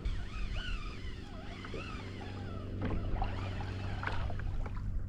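Fishing reel's drag giving line to a hooked fish, likely a tope, making a wavering whine that fades out about halfway through, with scattered knocks.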